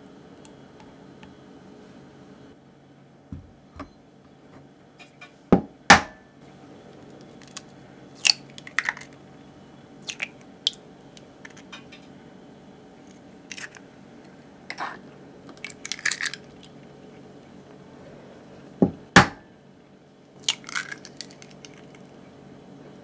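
Raw eggs being cracked one after another: sharp double knocks as each shell is tapped on a hard edge, followed by the lighter crackle of the shell being pulled apart, over a steady low hum.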